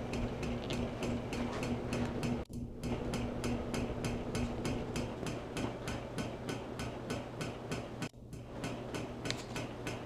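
Heritage ceiling fan running with a steady motor hum and a regular ticking about four times a second. One hum note stops about halfway through, and the sound drops out for an instant twice.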